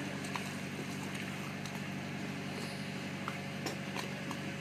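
Steady low hum of a cruise boat's running machinery, with a few faint clicks.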